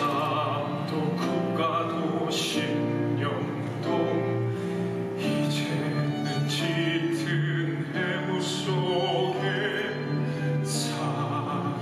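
A man singing a slow musical-theatre ballad in Korean with vibrato on long held notes, over instrumental accompaniment.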